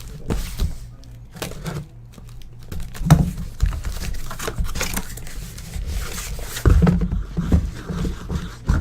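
Irregular crinkling and rustling of card packaging being handled, with knocks and taps on a table, over a steady low electrical hum.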